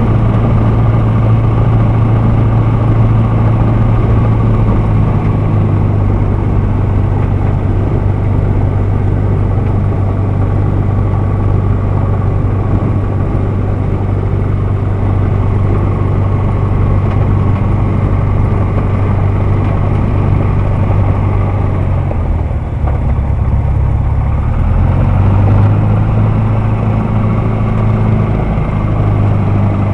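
Single-engine light plane's piston engine and propeller running at taxi power, a steady drone heard from inside the cockpit. About two-thirds of the way through, the engine note drops lower for about three seconds, then comes back up.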